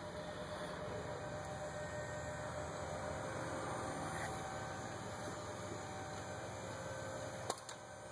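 Steady low mechanical hum with a faint high tone running under it, and one sharp click about seven and a half seconds in.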